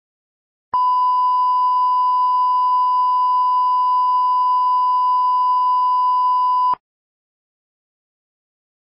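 A steady electronic beep tone, like a reference test tone, held for about six seconds and cutting off sharply.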